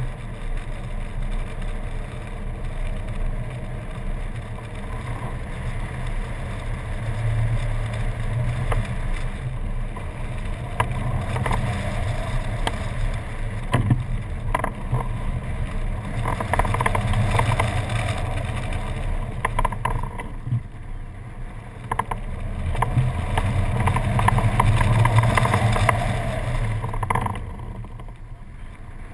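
Airflow rushing and buffeting over a wing-mounted GoPro HD Hero during hang-glider flight: a low, continuous rumble that swells and eases with the air speed and gusts.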